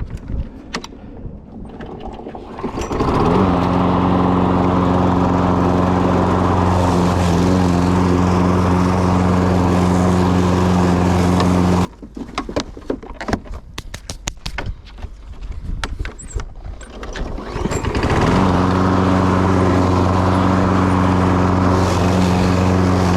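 Toro Personal Pace mower's Briggs & Stratton 190cc flathead engine pull-started from cold, catching first pull about three seconds in and running steadily. It cuts off suddenly just before halfway. After several seconds of clicks and knocks it is pulled again and starts first pull while hot, running on.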